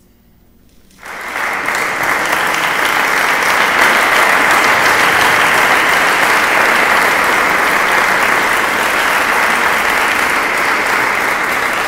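Audience applauding, breaking out suddenly about a second in from near silence and going on steadily.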